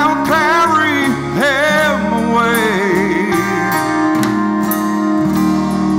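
Country band playing a slow ballad live: a male lead vocal holds and bends long notes over guitar and keyboard accompaniment.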